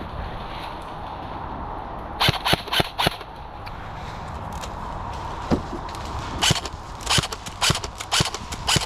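Airsoft guns firing: a quick run of about five sharp cracks about two seconds in, then single shots roughly every half second in the second half.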